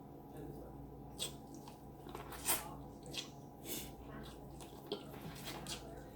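Close-up eating sounds: wet chewing and smacking of sauced seafood-boil food, with a few sharp clicks, the loudest about two and a half seconds in.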